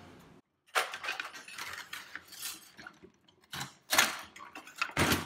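Sheet-metal and plastic parts of a toaster oven clattering and knocking as its casing and control panel are pulled apart by hand, with a few sharp knocks in the second half.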